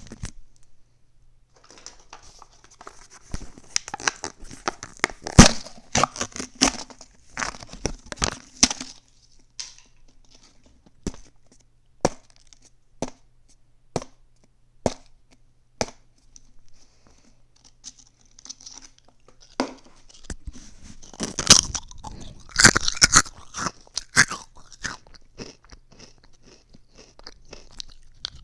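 A person biting and chewing crunchy food: bursts of crunching, then a run of single crackles about once a second, then another burst of crunching near the end.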